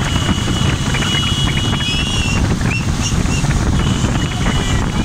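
Motorcycle and scooter engines running in a moving group, with heavy wind buffeting on the microphone as it rides along.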